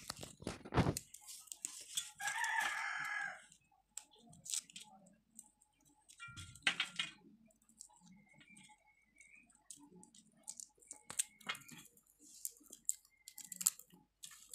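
Dry garlic skins crackling and clicking as cloves are peeled by hand over a steel plate, with an occasional knock. A rooster crows once about two seconds in, for about a second and a half.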